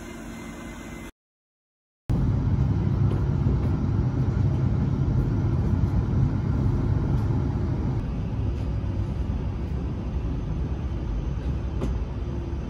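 A quiet steady hum breaks off into about a second of silence, then the steady low rumble of a moving train begins, heard from inside the carriage. The rumble eases a little in the second half.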